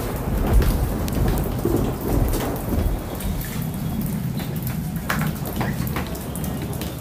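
Floodwater splashing and sloshing across a wet tiled floor as it is pushed with a squeegee, over a low rumble that is heaviest in the first few seconds. A few sharp knocks or splashes stand out about five to six seconds in.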